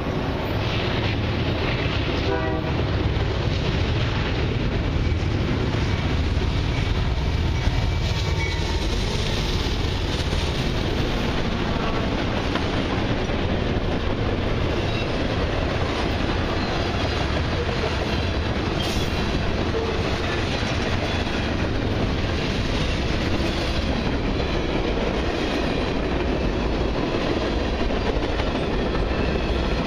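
A freight train led by diesel locomotives passes close by: the engines run under load with a deep rumble, and wheels clatter over the rail joints as the cars roll past, loud and steady.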